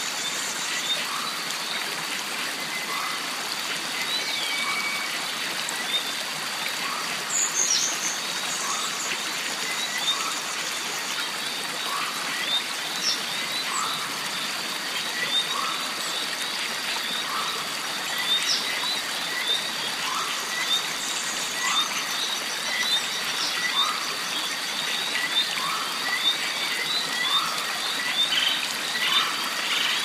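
Mountain stream running steadily under jungle ambience, with a steady high-pitched drone, a short call repeating about once a second, and a few bird whistles.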